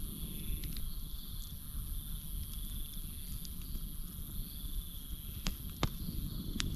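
Campfire burning with a low rumble and a few sharp crackling pops, the loudest about five and a half to six and a half seconds in. Behind it, a steady high-pitched insect chorus and a pulsing chirping call from crickets or frogs.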